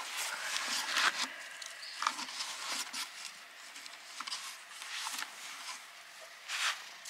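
Scattered rustling and scuffing on dry leaves, gravel and cardboard as a black cat sniffs and rubs around a cardboard box, with louder scuffs about a second in and near the end.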